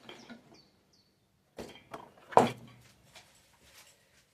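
Rummaging for a pair of pliers: light clicks and small scrapes, then two knocks, the second and louder one about two and a half seconds in.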